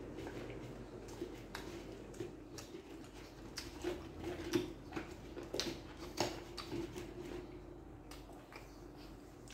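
A man chewing a mouthful of food close to the microphone, with irregular crunches and wet mouth clicks.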